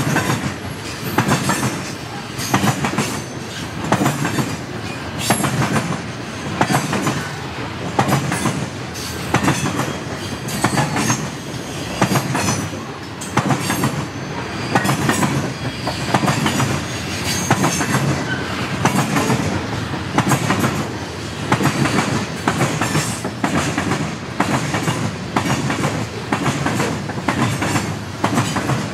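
Freight train of covered hopper cars rolling past, steel wheels clacking over rail joints in a steady rhythm, with a cluster of clicks a little more than a second apart as each car's trucks go by.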